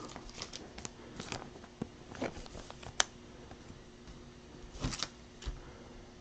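Baseball cards being handled and set down onto stacks on a tabletop: scattered soft clicks and taps, with a sharper click about three seconds in and a short cluster of taps near five seconds.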